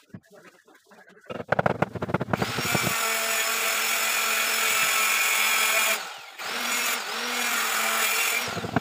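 Electric power tool motor starting up with a rising whine about two and a half seconds in and running steadily. It stops briefly near the six-second mark, then spins up and runs again until just before the end. A short rapid rattle comes just before it starts.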